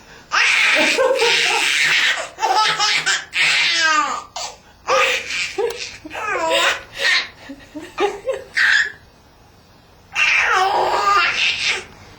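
A baby laughing in repeated fits, breaking off for about a second near the end and then laughing again.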